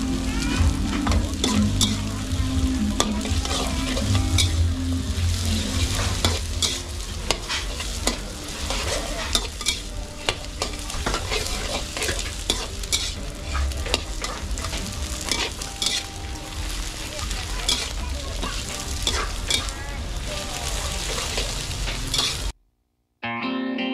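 Egg fried rice sizzling in a wok while a metal ladle scrapes and clacks against the pan as it is stirred and tossed. Near the end the sound cuts off and guitar music begins.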